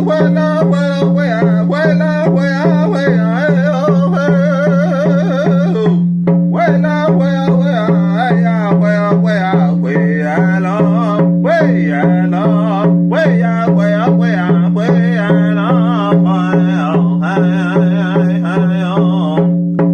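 Hand drum of deer hide struck in a steady, even beat, each stroke ringing on, while a singer sings a powwow-style straight song in a high, wavering voice, pausing briefly for breath.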